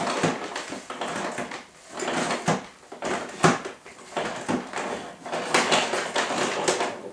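Bosch bagless vacuum cleaner's mains cable being wound back into its rewind reel in several short rattling spurts, with knocks of plastic between them.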